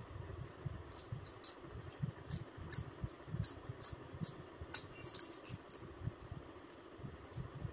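Close-miked eating: chewing with many irregular sharp, wet mouth clicks and smacks.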